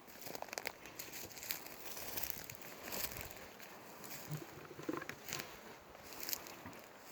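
Irregular crunching and rustling steps on the forest floor.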